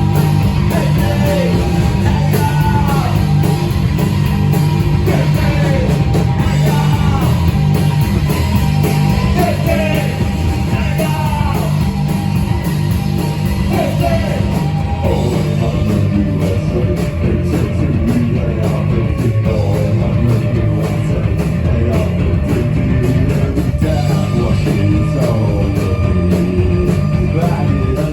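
Rock band playing a song live: drums, guitars and bass with a singer, steady and loud throughout, the drums and cymbals hitting harder in the second half.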